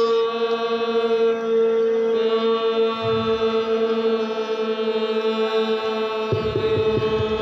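A soldier's long drawn-out shouted command, held on one steady note without a break, with more held voices from about two seconds in. Crowd noise swells up underneath about six seconds in.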